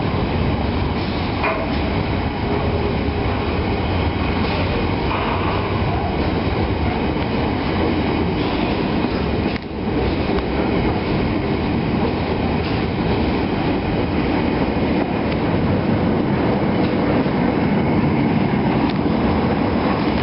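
Container freight train's flat wagons rolling past close by: a loud, steady rumble of steel wheels on the rails.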